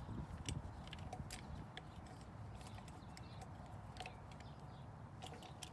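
Light, irregular clicks and taps of a screwdriver and small screws against a metal patio umbrella pole as the crank assembly is screwed back into place.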